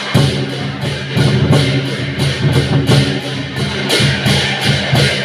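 Lion dance gong-and-drum accompaniment: big drum, gongs and cymbals beating a steady rhythm, about two and a half strokes a second.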